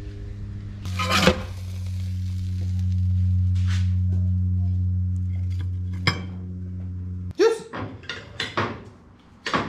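A steady low hum that stops abruptly near the end, with a few clinks of a metal knife against a plate.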